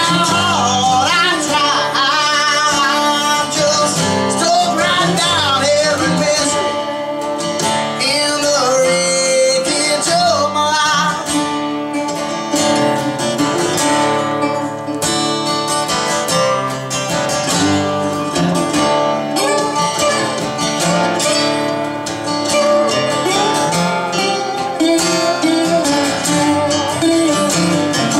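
Instrumental break on acoustic guitars and a resonator guitar: strummed chords under a lead line with gliding, wavering notes during the first ten seconds or so.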